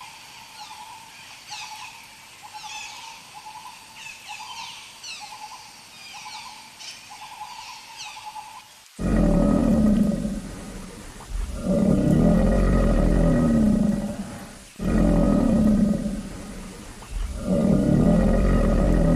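Quiet, repeated high chirping calls, then about nine seconds in, four long, loud roars from a large wild animal, each lasting two to three seconds with a wavering pitch.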